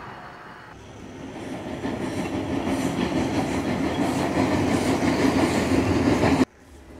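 OO gauge model steam locomotive running along the track toward and over a low camera, its electric motor humming and wheels running on the rails. The sound grows steadily louder as it nears, then cuts off abruptly near the end.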